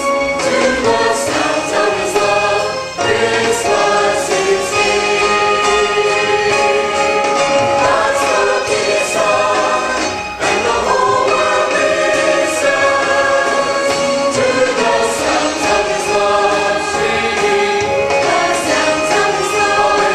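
A choir singing with instrumental accompaniment, with short breaks between phrases about 3 and 10 seconds in.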